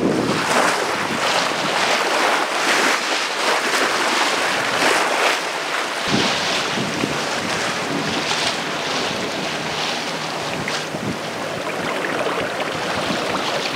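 Water rushing and splashing along the hull of a Hanse 455 sailing yacht under way, in uneven surges as the bow wave breaks, with wind buffeting the microphone.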